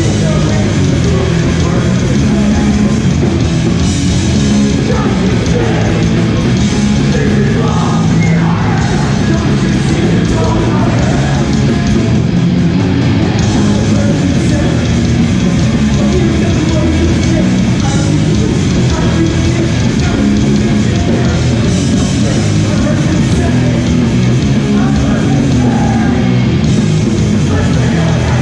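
Loud live hardcore punk: a band playing distorted guitars, bass and drums, with vocals, continuously and without a break.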